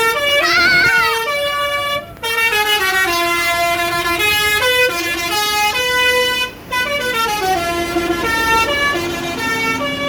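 Bus 'telolet' basuri horn, a multi-tone air horn, playing a melody of quick stepped notes, pausing briefly about two seconds in and again about six and a half seconds in.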